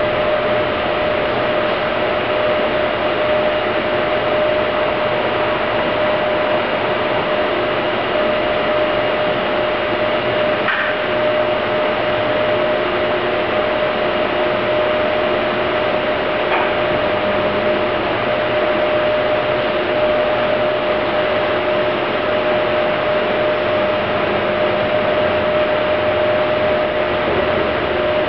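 Kuka KR150L150 industrial robot and its controller running while the arm is jogged slowly: a steady hum and fan-like hiss with one constant tone, and a couple of faint clicks near the middle.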